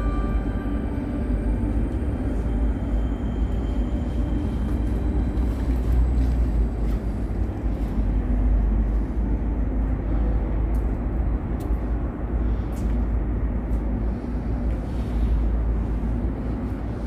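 Outdoor city ambience: a steady low rumble, strongest in the bass and wavering in level, with no distinct events standing out.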